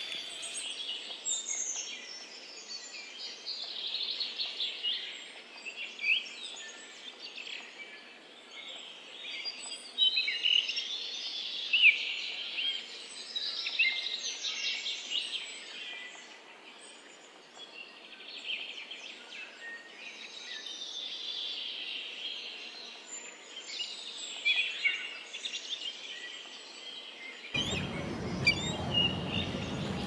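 Many wild birds chirping and calling over one another in a busy chorus of short, high chirps and trills. About two seconds before the end the birdsong gives way abruptly to a steady low noise.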